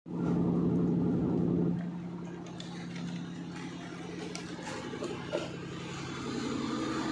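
Kapok fiber processing machine running with a steady motor hum, loud for the first couple of seconds and then fainter but continuing, with a few light ticks near the middle.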